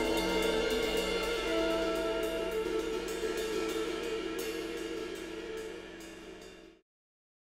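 Jazz quartet of tenor saxophone, electric guitar, electric bass and drum kit sustaining held notes under repeated cymbal strokes at the close of a tune. The music fades steadily and then cuts to silence near the end.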